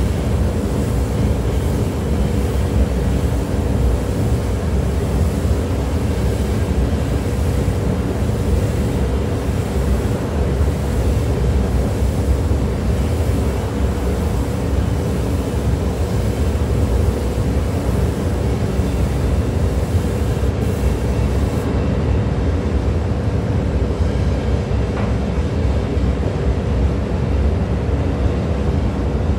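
Steady rumble and hum of a downdraft paint booth's ventilation running, with the even hiss of compressed air from a spray gun.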